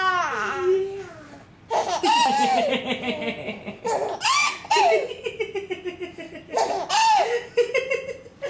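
A baby laughing in several bouts of pulsing, high-pitched laughter.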